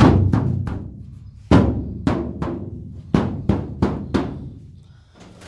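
Fingers flicking and tapping the taut wing covering of a home-built Lazair Series 3 ultralight: about a dozen sharp taps in three quick runs, each ringing briefly like a drum skin, then a pause near the end.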